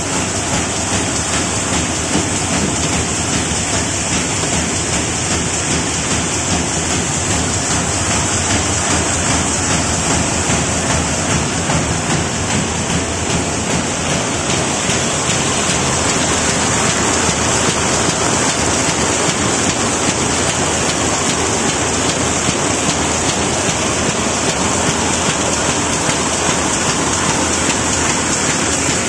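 RZFD-330T twisted-handle paper bag machine running steadily at production speed: a dense, even mechanical noise with a strong high hiss and no pauses or changes.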